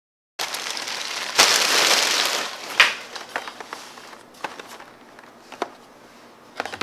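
Hands handling and setting down cardboard toy boxes: a crinkly rustle for about a second, a sharp tap, then lighter scattered taps and scraping. It starts abruptly about half a second in.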